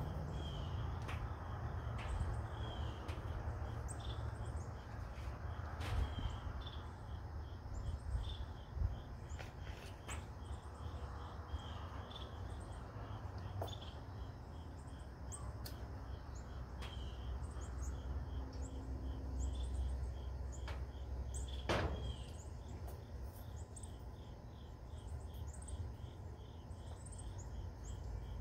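Outdoor ambience of many short, repeated chirps from birds and insects, over a steady low rumble, with a few sharp clicks now and then.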